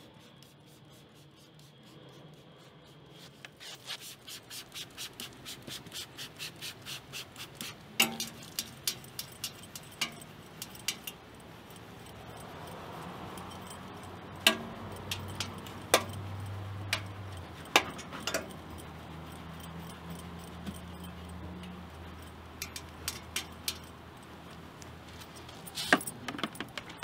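Hand-detailing sounds: a quick run of about four clicks a second for a few seconds, then scattered sharp clicks and taps as brushes scrub a car's wheel and exhaust tips, with keys jangling.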